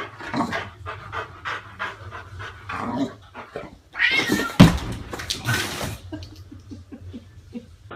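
A black cat and a boxer dog squaring off: a run of short growling, yowling calls, with a loud harsh hissing burst about four seconds in as the dog leaps at the cat.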